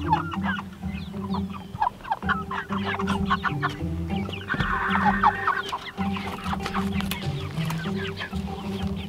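A flock of broiler chickens clucking and chattering, many short calls overlapping, over background music with a steady bass line.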